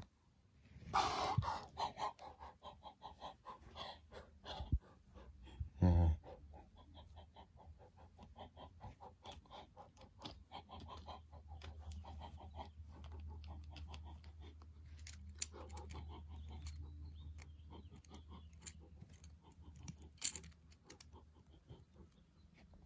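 A person's voice making quick, rhythmic panting animal noises, with a single louder sound about six seconds in.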